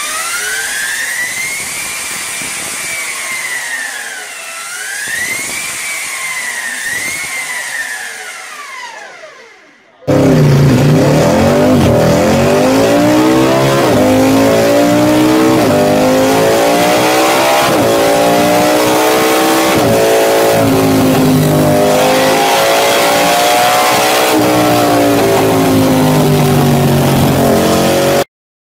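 A superbike revved on a stand, its high whine sweeping up and down in pitch, fading out about ten seconds in. Then the V-twin engine of a Hesketh Valiant motorcycle runs hard on a dynamometer, loud and steady, its pitch wavering slowly up and down before it cuts off near the end.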